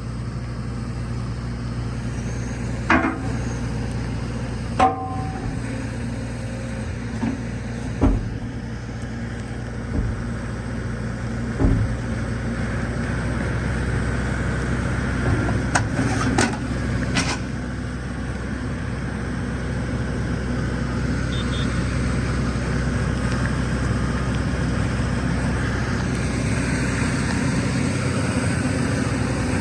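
Diesel engine of a loader idling steadily, with several sharp clanks and knocks in the first half. The engine grows a little louder in the second half.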